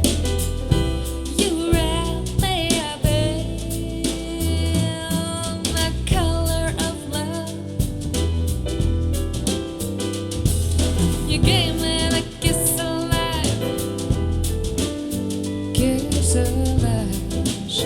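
Soul jazz song with a singing voice over drum kit and bass.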